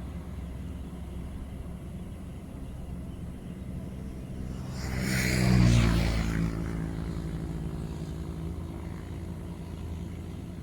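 Engine running steadily, with a motor vehicle passing close about halfway through: it swells to its loudest around five to six seconds in, then fades with its engine note dropping.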